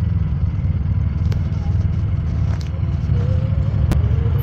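Kawasaki KRX side-by-side's engine running low and steady as it crawls over rock, with a few sharp clicks, the sharpest near the end.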